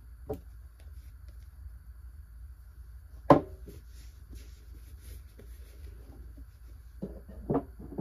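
Quiet low room hum with a few faint clicks and one sharp knock about three seconds in, then two more short knocks near the end.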